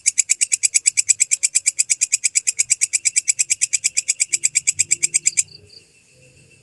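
Walang kecek (belalang kecek) insect calling: a loud, rapid train of sharp high-pitched chirps, about ten a second, that stops abruptly about five seconds in.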